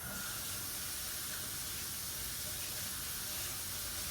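A tap turned on suddenly, water running steadily into a sink.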